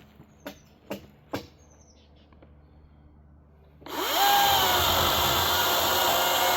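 Three sharp knocks in the first second and a half. Then, about four seconds in, an electric power tool starts up, its whine rising quickly and then running steady.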